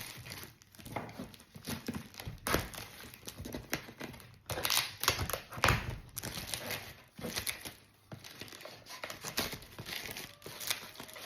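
Packaging being handled and opened: irregular crinkling and rustling of wrapping material with short tearing sounds, loudest about halfway through.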